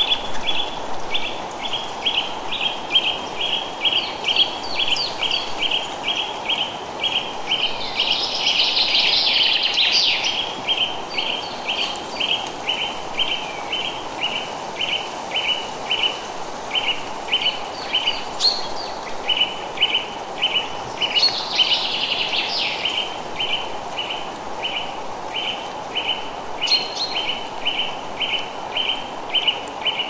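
Forest ambience: a steady run of short, high chirps about two or three a second, with bird chirps and twitters breaking in over it several times, over a steady rush of wind in the trees.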